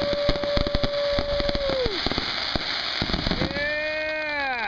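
Fireworks crackling and popping rapidly, with two long pitched tones: one held steady and then falling off about two seconds in, the other rising and sweeping down near the end.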